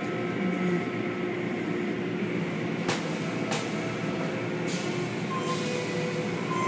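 Automatic tunnel car wash running: a steady mechanical hum with several held tones over a rushing noise, with two sharp knocks about three seconds in.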